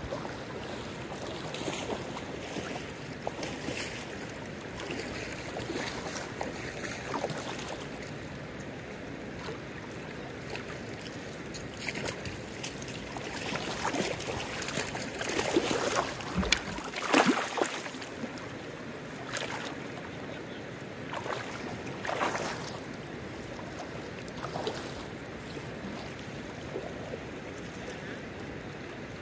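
Steady rush of a shallow river running over gravel, with scattered splashes and a louder cluster of splashes around the middle as a hooked fish is brought to the landing net.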